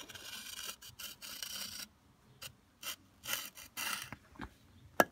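Metal concrete edging tool scraping along the edge of freshly poured concrete. One long rasping stroke of about two seconds, then, after a short pause, several shorter strokes.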